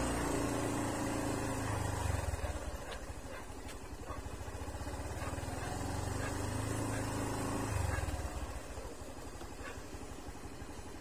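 A motor vehicle engine running with a steady hum. It swells near the start and again about eight seconds in, then eases off toward the end.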